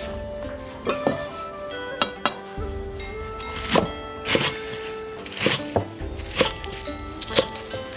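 Instrumental background music with about ten scattered knocks and clinks of kitchen pots and utensils being handled.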